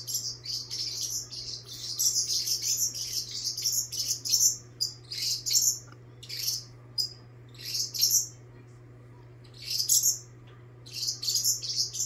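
Pet parrot screaming: shrill, high-pitched calls in rapid runs, thinning from about halfway through to separate bursts with short gaps between them.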